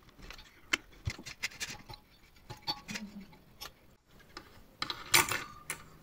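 Scattered light clicks and rattles of a vacuum cleaner motor's fan being unscrewed by hand and lifted off its shaft, with a louder clatter of parts about five seconds in.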